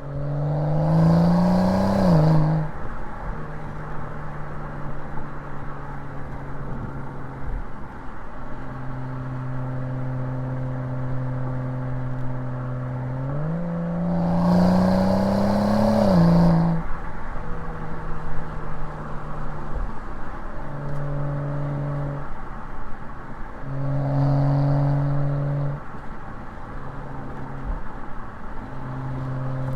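BMW 335i's N55 turbocharged 3.0-litre straight-six on its stock exhaust, accelerating hard twice. The engine's pitch rises, then drops sharply at an upshift, with steady cruising and a couple of lighter throttle swells in between.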